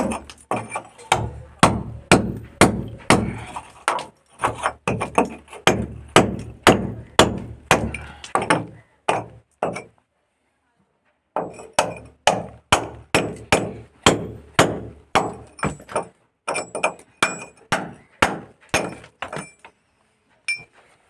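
Hammer blows on a steel chisel, about two a second, chipping a channel into a masonry wall for pipework, each strike with a short metallic ring. The hammering stops for about two seconds near the middle, then starts again.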